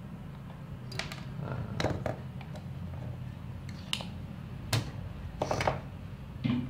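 Irregular short clicks and clinks of a small hand tool and fingers handling a television's circuit board and metal chassis during repair, about six in all, over a steady low hum.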